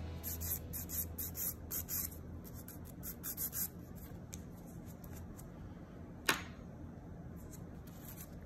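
Hand nail file rasping back and forth across a gel nail tip as the apex is filed down, in quick strokes over the first few seconds and fainter after that. A single sharp click about six seconds in.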